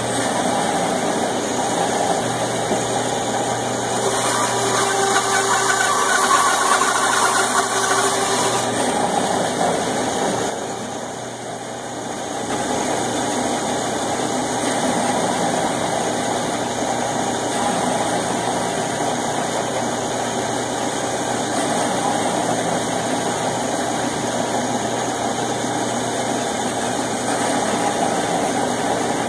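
Band saw running steadily, its motor giving a low hum. For a stretch in the first third the sound is louder and fuller as the blade cuts into a wooden board; it dips briefly, then settles back to the saw running without a load.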